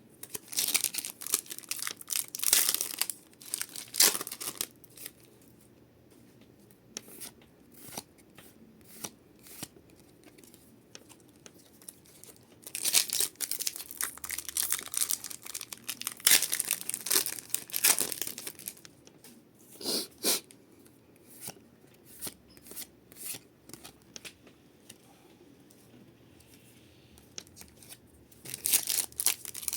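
Foil booster pack wrappers of Pokémon trading cards being torn open and crinkled, in several bursts of rapid tearing and crackling with quiet stretches between.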